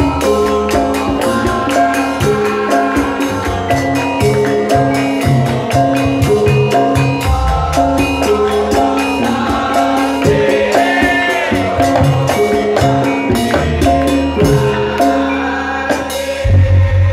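Live ensemble music: a melody of held notes over fast, dense percussion strokes, with group singing. Near the end the music thins out and a low hum comes in.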